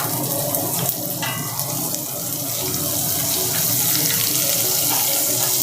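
Onion and garlic sizzling steadily in hot oil in a pan, the tempering (tadka) for rasam.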